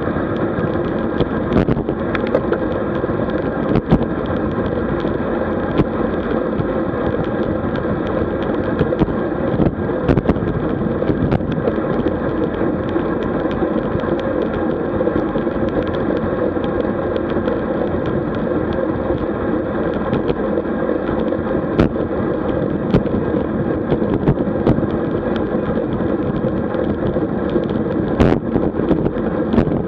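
Steady wind and road noise from riding a road bicycle at speed, picked up by the ride camera's microphone, with occasional short knocks from bumps in the road.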